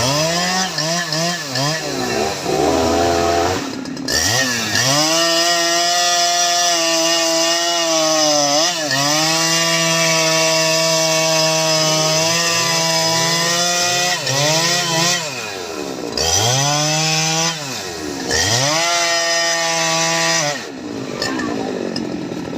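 Jonsered 2095 Turbo 93.6 cc two-stroke chainsaw running at high revs while cutting teak wood. The engine pitch dips sharply and recovers several times, and it drops lower near the end.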